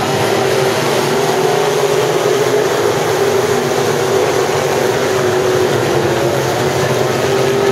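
A pack of sport modified dirt-track race cars with their engines running together in a steady drone, the pitch wavering up and down as the cars go through the turns.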